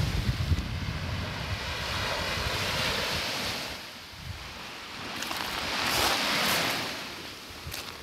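Small sea waves lapping and washing up on a shelly beach, swelling in twice, with some wind rumbling on the microphone.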